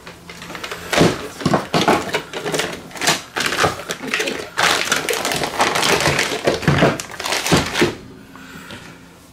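Plastic-packaged electrical supplies, a bagged coil of cable and a dimmer switch in a plastic clamshell, being handled and set down on a glass-ceramic stovetop. The plastic crinkles and rustles, with thunks as items are put down. It dies away about a second before the end.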